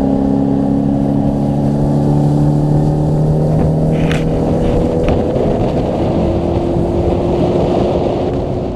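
Motorboat engine running loud and steady under way, over a rushing noise of water and wind.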